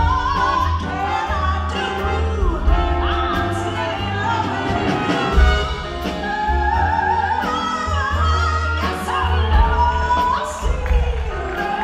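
A woman sings a slow jazz ballad with long, sliding held notes, backed by a small jazz combo: horns, piano, upright bass and drums.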